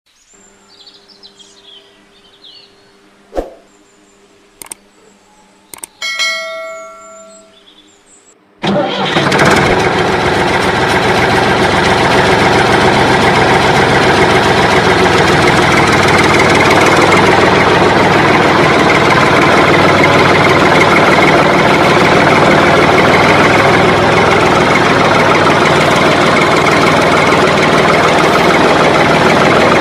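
A loud, steady tractor engine sound starts abruptly about a third of the way in and runs on evenly. Before it there are only a few faint clicks and a short ringing tone.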